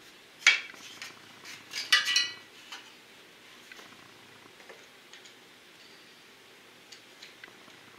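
Screwdriver clinking against metal while a hose clamp on the tractor's radiator hose is being worked. There is one sharp clink about half a second in and a cluster of ringing clinks around two seconds in, then a few faint ticks.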